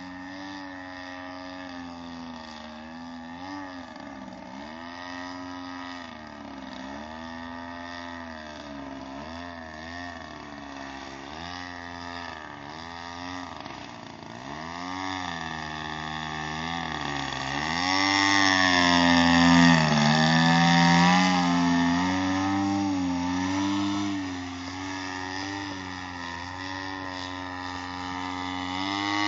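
DLE 55cc single-cylinder two-stroke petrol engine of a 2.2 m Sbach 342 RC aerobatic plane in flight. Its pitch keeps rising and falling as it manoeuvres, and it grows louder past the middle, loudest for a few seconds as the plane passes close.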